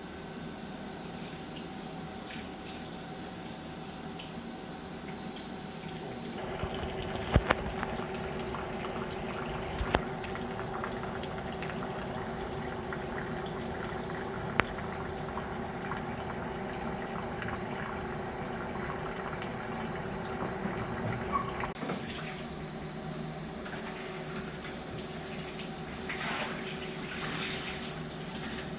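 Water running steadily from a metal hose into a film developing tank, a continuous rushing flow as the film is washed, with a few sharp knocks and some clatter from the tank being handled.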